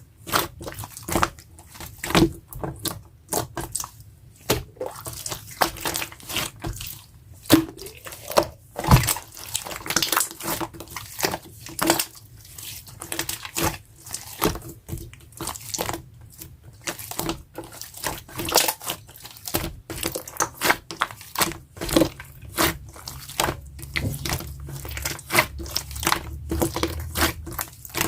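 Sky-blue jelly-textured clear slime being squished and pressed by hand, giving an irregular run of wet clicks and pops, several a second.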